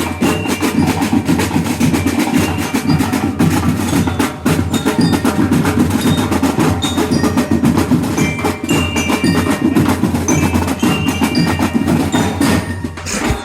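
Percussion-heavy band music: fast, dense drumming with short bright bell-like mallet notes played over it.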